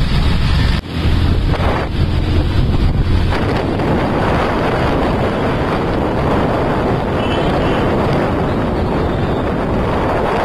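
Wind buffeting the microphone while riding a motorcycle through town traffic, over the steady rumble of motorbike engines. The noise dips briefly about a second in.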